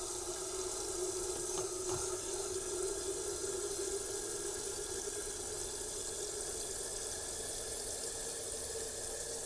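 Water running from a kitchen mixer tap into a white plastic electric kettle, filling it in a steady stream.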